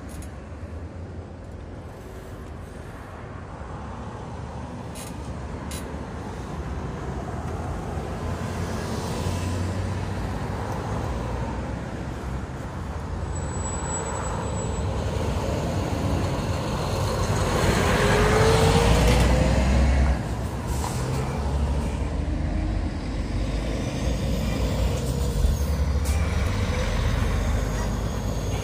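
Heavy road traffic at a busy junction: trucks and cars passing, a steady low rumble of engines and tyres that swells to its loudest about two-thirds through as a heavy vehicle goes by, then drops suddenly. A short high squeal sounds near the middle.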